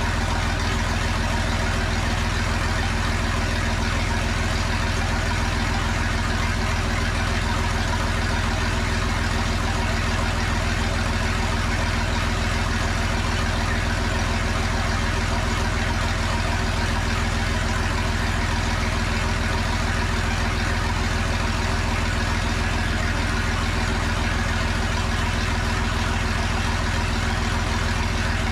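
John Deere 3155 tractor's six-cylinder diesel engine idling steadily on a fresh set of injectors, running smoothly.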